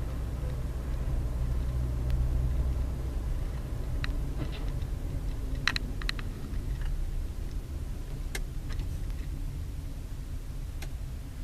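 Steady low rumble of a car driving at road speed, engine and tyres heard from inside the car, with a few sharp clicks between about four and six seconds in and twice more later.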